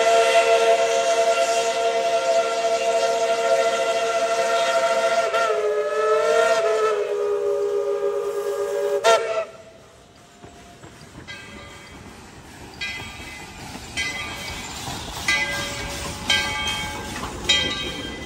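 Steam whistle of 1917 Baldwin narrow-gauge 4-6-0 locomotive No. 12, sounding several notes at once, held for about nine seconds with a brief waver in pitch in the middle before it cuts off sharply. Then, quieter, the locomotive's bell ringing with strokes about once a second as the train rolls into the station.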